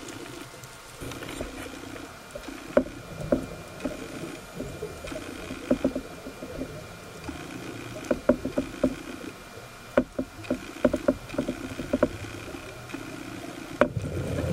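Underwater recording on a scuba dive: bursts of bubbling and rushing from a diver's breathing through the regulator, in stretches of a second or two, with many sharp clicks and knocks, clustered several times.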